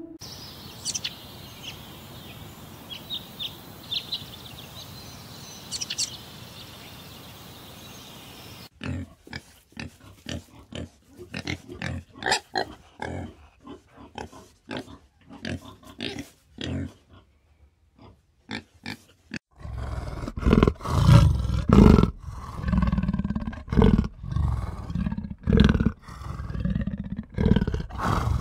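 A hummingbird giving faint, high, thin chirps over a steady hiss; then, about nine seconds in, a warthog grunting in quick short bursts; then, from about twenty seconds in, a black leopard growling and roaring in loud, deep, repeated bursts.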